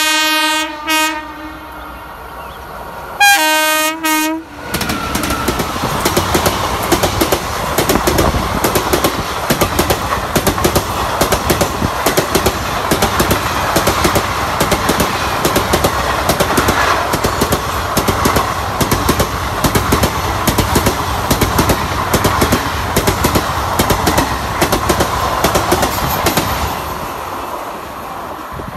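WAP-7 electric locomotive passing at speed and sounding its horn: a long blast that ends about a second in, a short toot, then another blast about three seconds in. Its long train of sleeper coaches then rushes past, the wheels clattering over the rail joints in rapid clicks for about twenty seconds before the sound fades near the end.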